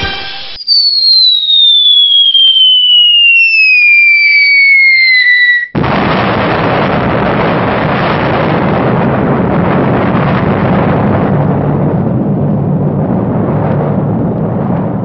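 Sound effect of a descending whistle, sliding down in pitch for about five seconds, then a sudden loud explosion whose rumble carries on and slowly fades.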